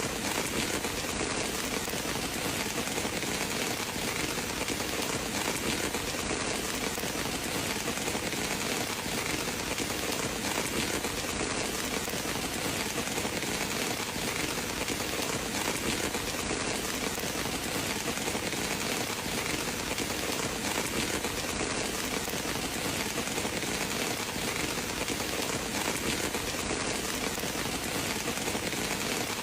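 Steady rain, an even unbroken hiss with no thunder or separate drops standing out.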